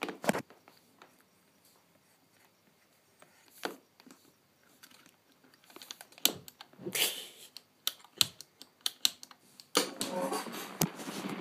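Buttons on a gaming chair's side control panel being pressed: scattered sharp clicks, coming in a quicker run late on, with some rubbing and handling noise.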